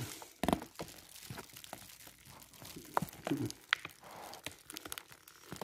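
Paper mailer envelope being handled and pulled at while someone tries to open it: irregular crinkling and rustling of stiff paper with scattered small crackles and clicks.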